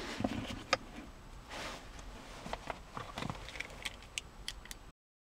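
Handling of a car remote key fob: small sharp plastic clicks and soft rustling as its circuit board is taken out of the shell. The sound cuts off suddenly near the end.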